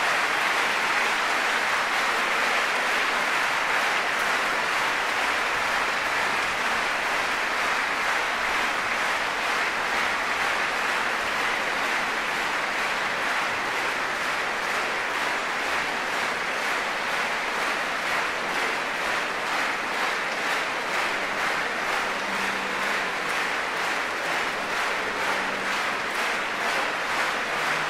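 Concert-hall audience applauding, a dense, steady ovation that falls into regular rhythmic clapping in the second half.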